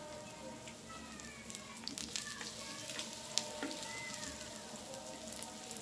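Breadcrumb-coated potato kababs sizzling as they shallow-fry in mustard oil, with scattered crackles. A few light clicks come from the fork and knife as one kabab is turned over.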